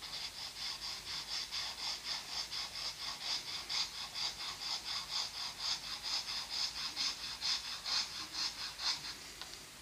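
Steel fine nib of a Lamy Safari fountain pen scratching quickly back and forth on Rhodia paper while scribbling, about four to five strokes a second. The scribbling stops near the end.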